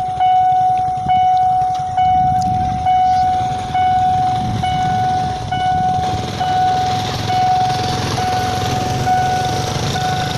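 Railway level-crossing warning bell ringing, one ringing stroke a little under every second, over the low rumble of road vehicles; a louder rushing noise builds from about six seconds in.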